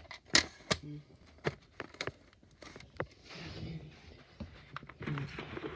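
Plastic VHS clamshell case being handled: a run of sharp clicks and taps, most of them in the first two seconds.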